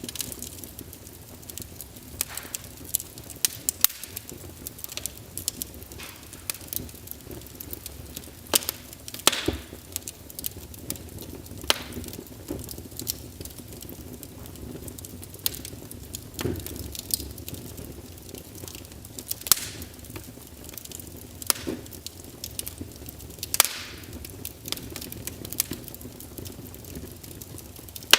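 Fire in a fireplace crackling: irregular sharp pops and snaps, a handful louder than the rest, over a low steady background.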